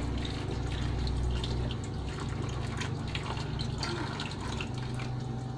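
Spaghetti sauce being stirred in a pot with a wooden spatula as milk goes in: wet liquid sounds with many small scattered pops, over a steady low hum.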